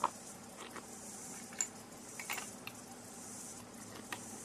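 A few faint clicks and clinks of a bolt-action .375 CheyTac Improved rifle being reloaded by hand between shots, over a steady high hiss.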